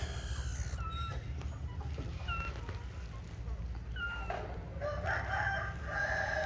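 Animal calls: short high chirps about once a second, then near the end a louder, longer pitched call in two parts, over a steady low hum.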